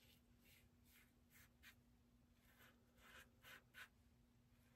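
Faint, short scraping strokes of an Everyday Shaving magnetic safety razor's scalloped, aggressive side cutting lathered stubble against the grain, about half a dozen strokes, coming closer together in the second half.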